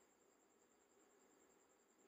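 Near silence: a faint steady hiss with a thin high tone.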